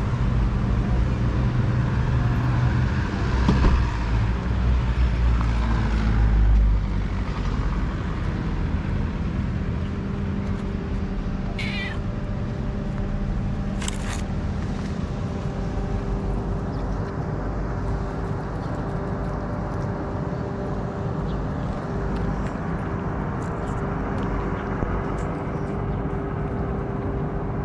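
Street cat meowing, with a short cry about twelve seconds in. Under it runs a low rumble, loudest during the first several seconds, and a steady hum from about ten seconds on.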